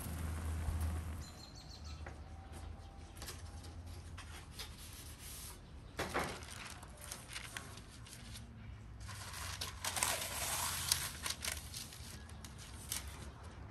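A large pot of quince pieces boiling hard for about the first second. Then baking paper is pulled from a roll and crinkled as sheets are laid out on a wooden table, with a sharp rustle about six seconds in and the loudest crinkling from about nine to eleven seconds in.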